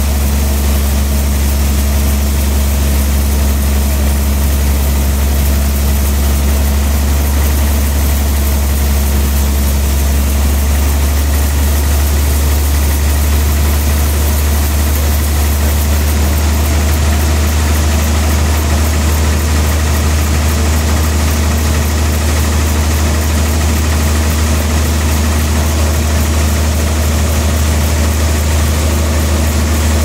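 Band sawmill running idle with a steady low hum, without cutting. The pitch and texture shift slightly about halfway through.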